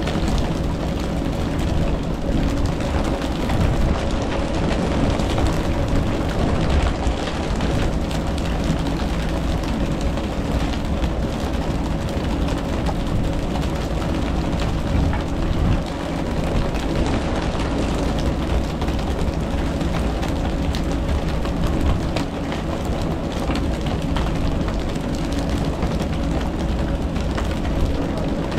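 A boat engine running steadily, its low hum under a constant rush of wind and water.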